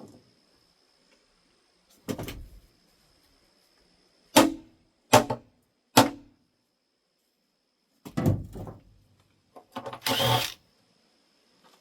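Hammer blows on metal engine parts during an engine teardown: separate sharp knocks with a short ring. Three come in an even row about halfway through, and a cluster of strikes comes near the end.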